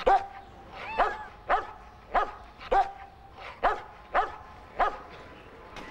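Dog barking repeatedly: about eight short, high-pitched barks at a steady pace, roughly one every half second to second.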